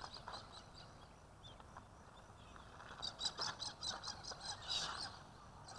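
Faint bird chirps: a quick run of short, high notes, about four or five a second, between about three and five seconds in.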